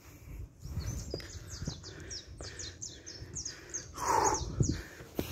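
A forest bird singing a rapid series of short, high, falling notes, several a second. Beneath it are the thumps and rumble of someone walking up a trail with the camera, and a brief louder rush of noise about four seconds in.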